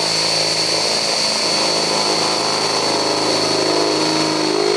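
Electric drill running steadily at speed with a step drill bit, cutting a mounting hole out to 16 mm through the sheet-metal front guard, with a constant high whine.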